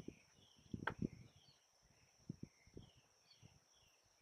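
Faint outdoor ambience: a steady high-pitched insect drone with short scattered bird-like chirps, over soft low rustles and thumps, with one sharp click about a second in.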